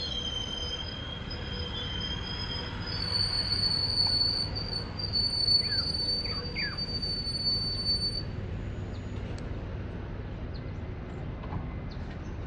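Electric suburban train braking to a stop at a platform: a low rumble with steady high-pitched squealing for the first two-thirds, the squeal rising to a higher, louder pitch about three seconds in, then fading to the rumble as the train comes to rest.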